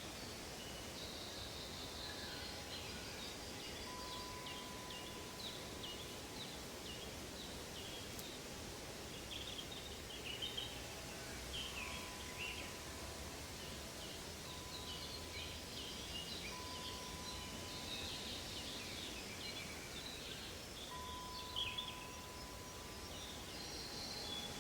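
Forest ambience of many small birds chirping and trilling throughout, over a steady hiss, with faint long held notes underneath.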